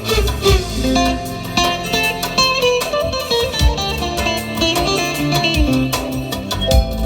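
Music led by a plucked guitar, with a low bass line and sharp percussive hits.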